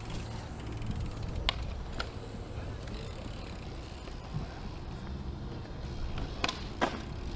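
Bike's freewheel hub ticking as it coasts, over a steady rolling rumble of tyres on concrete, with sharp knocks twice about a second and a half in and twice more near the end.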